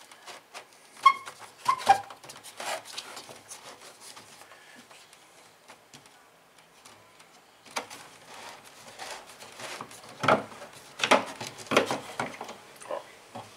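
Plastic clicks, knocks and scraping from the housing of a Lorenzetti Jet Turbo electric shower being gripped and twisted anticlockwise to open its resistance chamber. The handling noises are scattered at first, ease off for a few seconds in the middle, then come in sharper clusters of knocks near the end.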